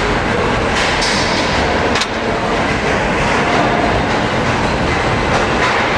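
Two 60-pound combat robots fighting: a steady, loud mechanical rumble and clatter from their motors and weapons, with one sharp hit about two seconds in.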